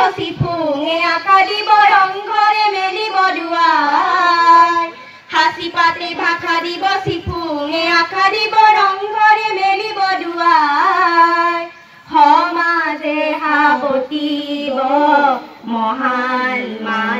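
Young voices singing a song together in long melodic phrases, with a short break about five seconds in and again about twelve seconds in.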